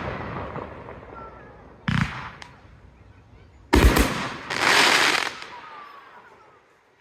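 Fireworks display: the last bangs die away, a firework bursts with a sharp bang about two seconds in, then a louder bang near the middle is followed by about a second of dense hissing before the sound fades.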